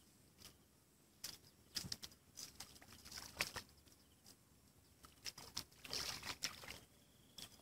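Footsteps wading into shallow water from a grassy bank: scattered light clicks and soft splashes, busiest about six seconds in.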